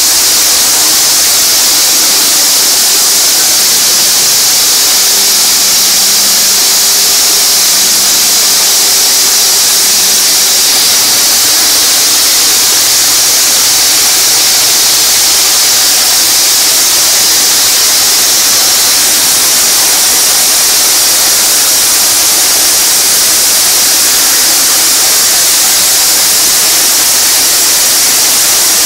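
Concrete saw cutting into concrete: a loud, steady, hissing grind that holds even with no breaks. A faint low hum sits under it from about five to eleven seconds in.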